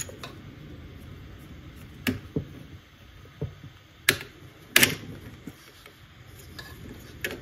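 Hard plastic clicks and knocks as a 3D-printed ABS part is pushed and clipped onto a Bambu Lab A1 printer's plastic bracket. There are several separate clicks, the loudest a little past the middle.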